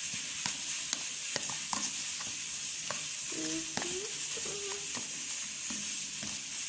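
Stirring a wet paste of shredded toilet paper and dish detergent in a bowl: a steady wet hiss with scattered sharp clicks of the stirrer against the bowl.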